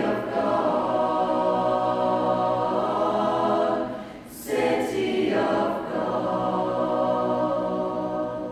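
Choir singing a cappella in slow, long-held phrases, with a short break between phrases about four seconds in, easing off near the end.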